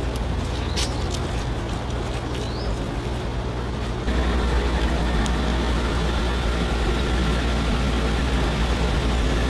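An engine running steadily with a low, even rumble, stepping up in level about four seconds in.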